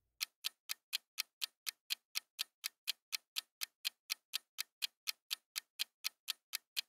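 Countdown-timer sound effect: a clock ticking evenly, about four ticks a second.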